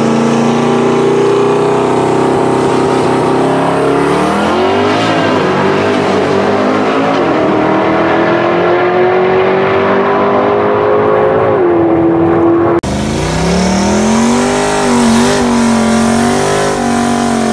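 Coyote 5.0 V8 engine of a 2011 Ford Mustang drag car held at high revs on the start line, then pulling hard down the drag strip, its pitch climbing steadily before dropping sharply. After an abrupt cut, the same engine revs up and down during a smoky burnout.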